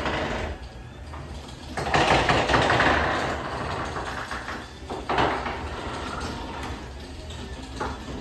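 LiftMaster 81602 garage door opener running, lowering a Wayne Dalton 9100 sectional door: a steady motor hum under the rattle of the door travelling down. The rattle is loudest from about two seconds in, with a couple of short knocks later on.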